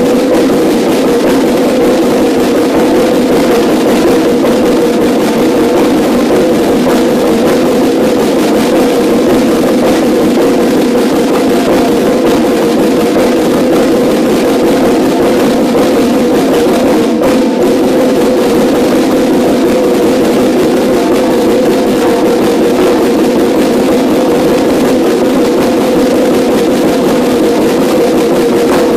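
A line of five Yamaha marching snare drums played loudly and continuously together, a dense stream of stick strokes over the drums' steady ringing pitch, with a momentary break a little past halfway.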